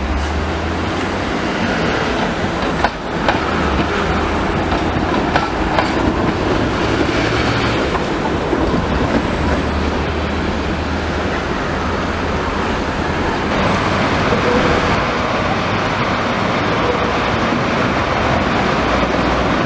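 Hong Kong MTR Light Rail trams running on the rails: wheel-on-rail rolling noise with a few sharp clicks as a Comeng Phase I car crosses the pointwork and moves away. After a cut, a Kawasaki Phase II car approaches round a curve.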